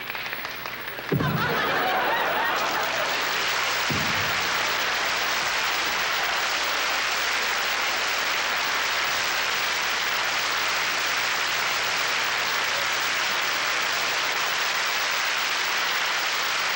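Crowd applauding, a steady, sustained clapping that starts about a second in and holds to the end, with two low thumps early on, about three seconds apart.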